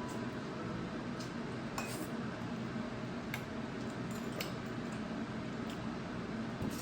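Light, scattered clinks of utensils against dishes, about eight over several seconds, over a steady background hum.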